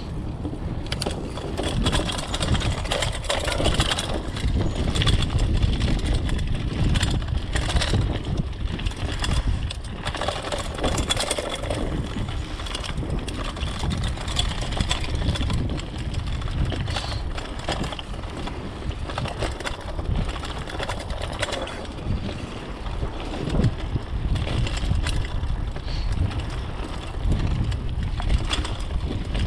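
Mountain bike rolling fast down a dirt trail: steady wind buffeting the microphone, knobby tyres crunching over dirt and leaves, and frequent clicks and rattles from the bike jolting over bumps.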